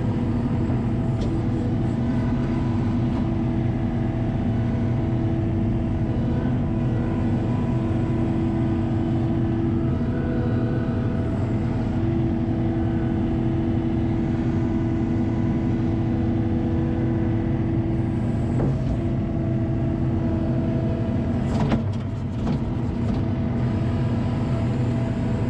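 ASV RT-40 compact track loader's diesel engine running steadily under load, heard from inside the open cab, while the bucket scalps sod and is raised with a load of turf. A single sharp knock near the end.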